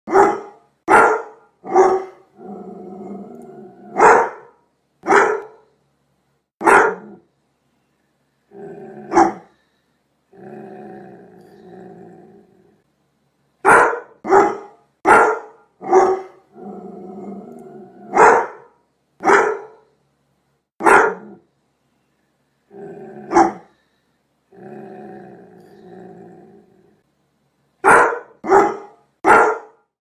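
A large Doberman pinscher barking and growling: sharp, loud barks, some in quick runs of three or four, broken by low growls of a second or two.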